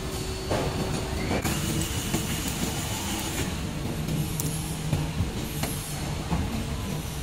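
Cordless drill running for about two seconds, starting about a second in with a rising whine, as it turns the threaded height adjuster of a plastic adjustable pedestal. Knocks of the plastic pedestal sections being handled follow.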